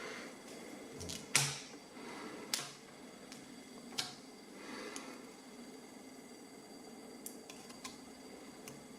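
Small metal clicks and taps from handling an ABUS Extreme padlock being taken apart, a few sharp ones in the first four seconds and fainter ones later, with light rustling in between.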